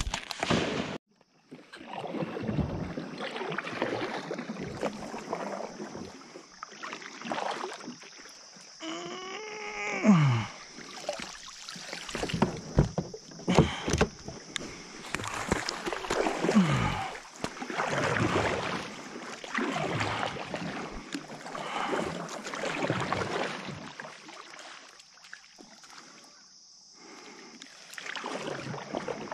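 A sharp bang at the very start, then kayak paddle strokes dipping and splashing in river water, roughly one stroke every two seconds with short pauses between.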